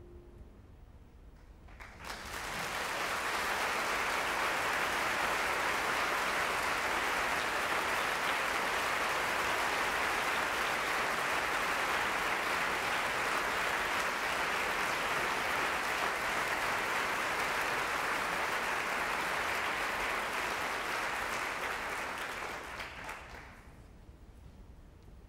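A last piano note dies away, then a theatre audience starts applauding about two seconds in. The clapping holds steady for about twenty seconds and fades out near the end.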